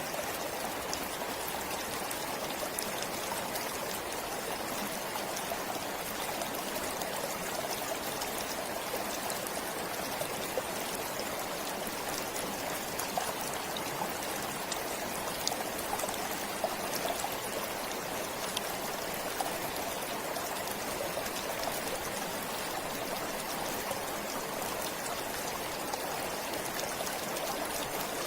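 Stream flowing steadily: an even rush of water with small scattered trickling ticks.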